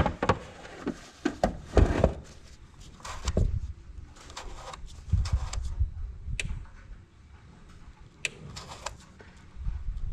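Handling knocks and a few sharp, separate clicks from the plastic housing of a Gallagher S100 electric fence energiser as its repaired power switch is tried again.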